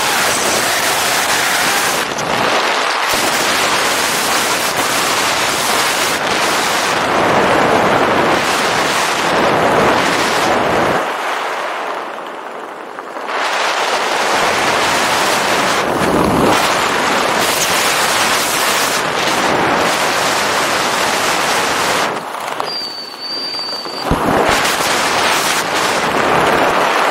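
Wind rushing over the camera microphone during a parachute descent, a loud noise that rises and falls in gusts. A brief high beep sounds about 23 seconds in.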